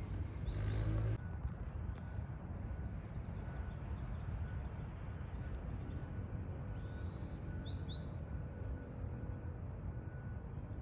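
Reversing alarm on construction machinery beeping as a faint, persistent repeating tone, over a low rumble that cuts off about a second in. Birds chirp briefly around the middle.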